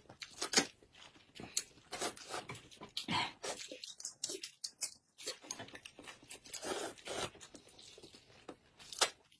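Two people slurping and chewing noodles from bowls in quick, irregular slurps, eating as fast as they can.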